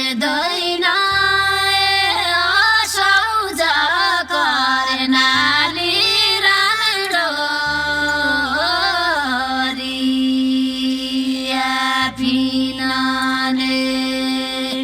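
Background music: a woman's voice singing a gliding, ornamented melody over a steady drone, with low bass notes that change every few seconds.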